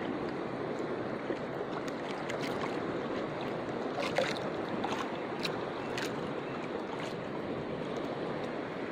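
Sea water lapping and washing against the hull of a small wooden canoe, a steady wash with a few short splashes or knocks about four to six seconds in.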